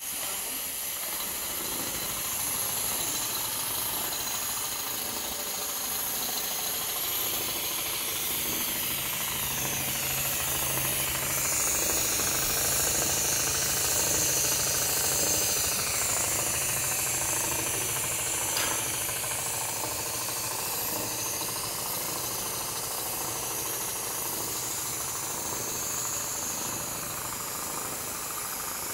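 Richpeace large-area automatic sewing machine running steadily, its gantry-mounted head stitching a large panel, with a hiss over it; a low hum joins about a third of the way in.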